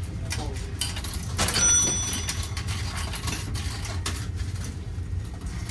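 Coins being fed into a shower-card vending machine, a few light metallic clicks with one ringing clink about one and a half seconds in, over a steady low hum.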